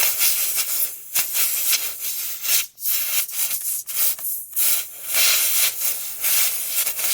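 Air hissing out of a punctured tubeless tire through the screw hole, where the reaming tool sits; the hiss stops briefly several times.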